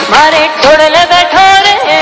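Background music: an Indian song with a singing voice over instruments, starting afresh right at the beginning.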